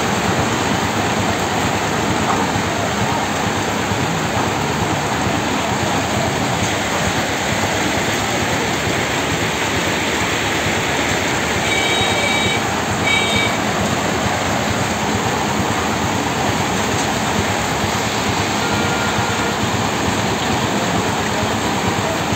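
Heavy hail and rain falling on a wet street: a dense, steady hiss. Two short high beeps sound about halfway through.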